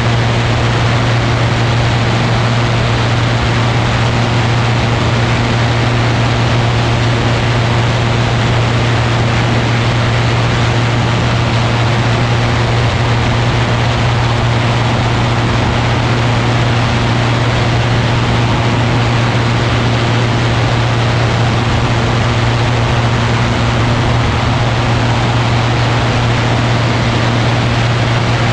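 Ultralight aircraft's engine and propeller running steadily in flight: a loud, even low drone over a constant rush of wind.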